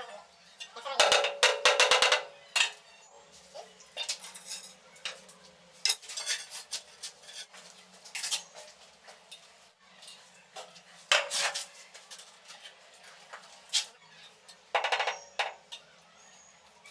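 Tiling work: small ceramic tiles and a metal tool clinking and tapping at irregular intervals. A quick rattling run of clicks comes about a second in, and a few louder knocks follow later.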